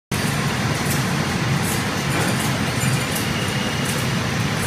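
Rotogravure printing machine running, its film web passing over the rollers: a steady mechanical din with a low hum and faint intermittent ticking.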